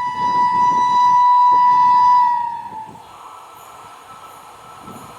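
Indian Railways WAP7 electric locomotive's air horn sounding one long steady blast, which stops about two and a half seconds in. After it comes the quieter, steady rolling noise of the passing train.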